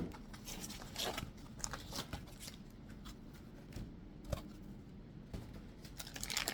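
Packaging being handled and opened: scattered rustles and light clicks.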